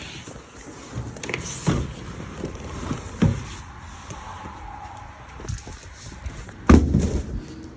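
Irregular knocks and clunks of grill parts being handled during assembly, with one loud clunk near the end.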